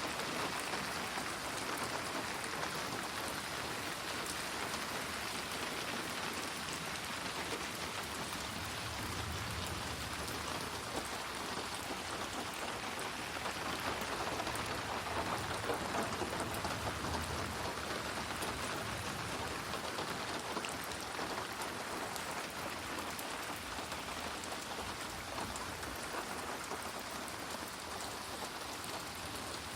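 Steady rain falling, a dense even hiss of many drops on a surface, growing slightly louder about halfway through.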